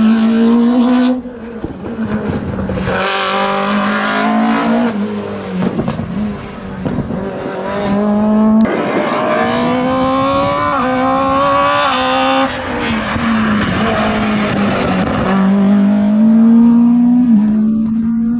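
VW Golf 2 race car's engine at full throttle through a cone slalom. The pitch climbs through the gears, drops sharply at each shift and falls away briefly when the driver lifts off.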